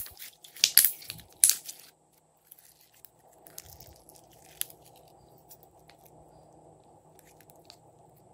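Glossy slime squeezed and stretched by hand, making sharp crackling pops. There are three loud ones in the first two seconds, then fainter crackles.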